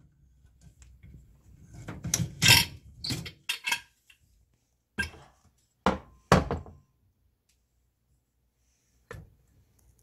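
Stainless steel pressure cooker lid being unlocked and twisted off, with scraping and a series of metal clanks and knocks as it is handled and set down. The loudest knocks come between about two and seven seconds in, with one more click near the end.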